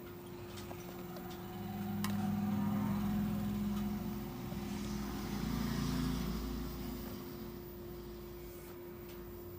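An engine, most like a passing motor vehicle, swelling to its loudest a couple of seconds in and fading away again, over a steady low hum.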